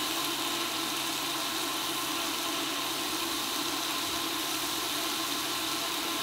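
Steady low hum under a constant hiss, with no distinct events: an electric hot pot running with its broth on the boil.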